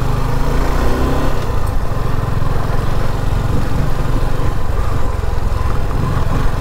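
Suzuki V-Strom SX 250's single-cylinder engine running as the motorcycle is ridden off-road: a steady low rumble, with a clear engine note for about the first second and a half, then a rougher sound.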